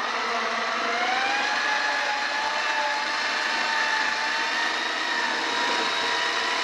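Hand-held electric mixer running, beating eggs into creamed butter and sugar. Its motor whine climbs in pitch over the first second or so, then holds steady.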